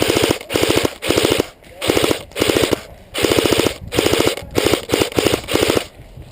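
Airsoft electric rifle firing on full auto in about ten short bursts in quick succession, each a rapid string of mechanical clacks from the gearbox cycling.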